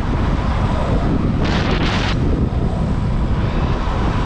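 Heavy wind buffeting the microphone of a rider moving at speed into a strong headwind, a loud low rumble throughout, with a brief brighter hiss about a second and a half in.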